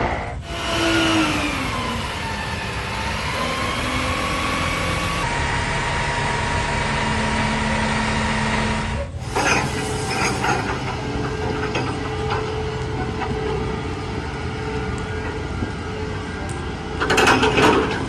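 Engine and machinery noise from several short cut-together clips of heavy equipment, among them a crane's cable winch and a Liebherr crawler crane. A falling whine comes about half a second in, a steady whine runs through the middle, and a louder clatter comes near the end.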